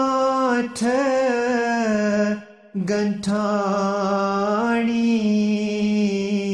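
Solo voice singing a line of a ginan, an Ismaili devotional hymn, slowly and in long held notes on the word "gāṅṭh". There is a short break for breath about two and a half seconds in.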